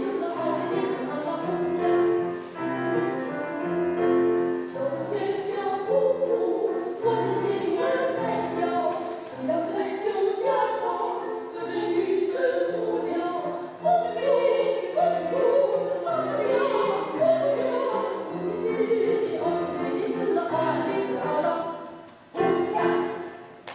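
Classical-style singing with accompaniment, a melody held over steady low notes; the music drops away briefly near the end and comes back.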